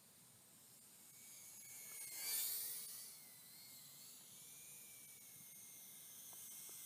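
Faint high-pitched whine of a brushless ducted-fan micro FPV quadcopter (Warlark Pro 85) in flight, its pitch wavering slightly with throttle. It swells louder about two seconds in, then fades back.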